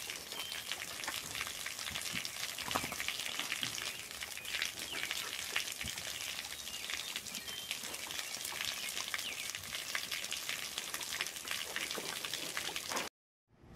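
Spray of water pattering and splashing onto wet mud and pigs, a dense, steady crackling hiss that cuts off suddenly shortly before the end.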